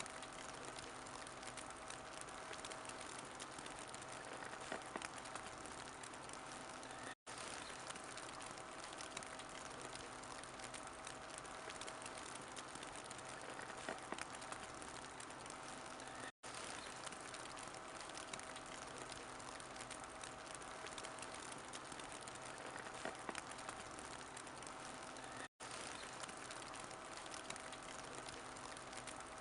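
Wood fire crackling in a fireplace: a steady hiss with scattered small pops. The sound cuts out for an instant three times, about nine seconds apart.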